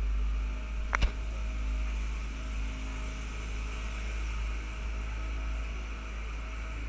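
Low steady rumble of a river tour boat under way, with a single sharp click about a second in.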